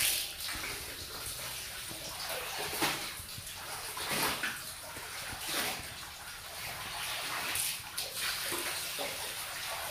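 Wet laundry being swished and lifted in a stainless steel basin of water, with irregular splashes and dripping every second or two.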